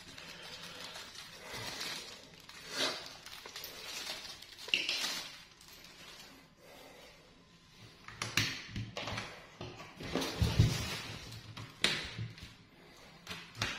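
Handling noises as a mechanical keyboard is unpacked and handled: intermittent rustling with light knocks and clicks, a cluster of soft thuds about ten seconds in.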